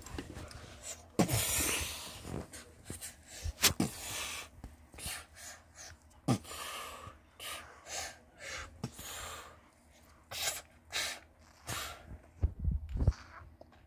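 Irregular breathy puffs and hisses, a person making mouth sound effects for a toy fight, with one longer hiss about a second in. Rustling and a few dull knocks near the end come from the plush puppet being handled against fabric.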